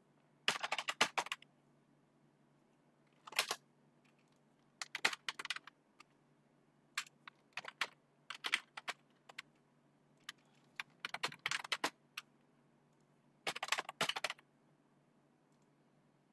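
Computer keyboard typing in short bursts of keystrokes with pauses between them, as text is entered into a form.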